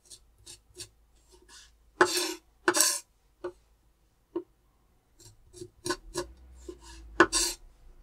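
Kitchen food-preparation handling sounds: a series of light clicks and taps, with short, louder scrapes about two and three seconds in and again near the end.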